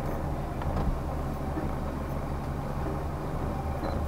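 Off-road 4x4 engine idling steadily, a low even hum.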